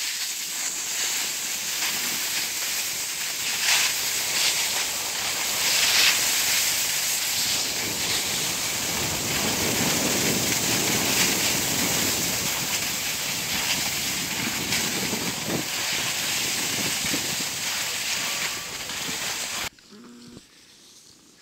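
Loud steady hiss and scrape of sliding over packed snow, with wind buffeting the microphone, cutting off suddenly near the end.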